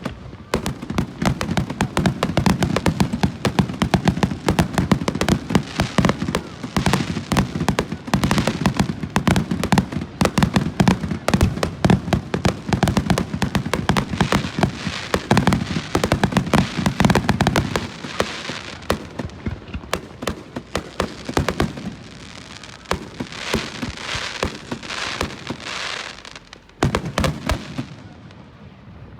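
Fireworks going off in a dense, rapid barrage of cracks and pops with a low rumble underneath, thickest for the first eighteen seconds. The crackling then thins out, and a fresh burst comes near the end.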